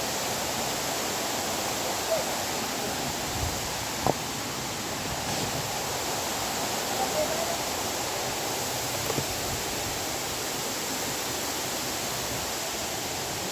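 Steady, dense rushing of a waterfall, with a few faint knocks.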